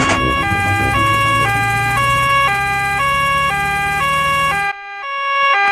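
Cartoon two-tone emergency siren on a doctor's car, switching between a high and a low note about once a second. A low engine hum under it stops near the end while the siren goes on.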